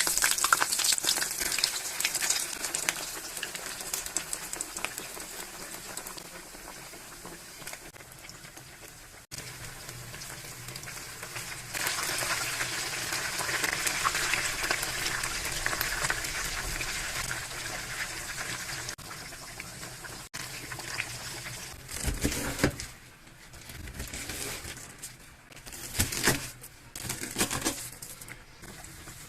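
Food sizzling and crackling in a frying pan, with a few louder clunks of pan or utensils about two-thirds of the way through.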